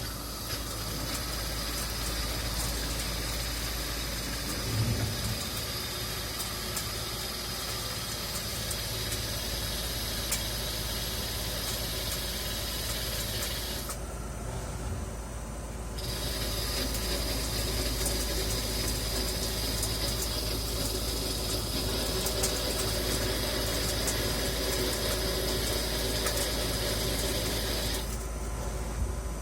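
Spinner lathe running through a turning cut: a steady low hum of the machine with a high, even cutting whine and scattered ticks on top. The high whine drops away for about two seconds in the middle and again near the end, while the hum goes on.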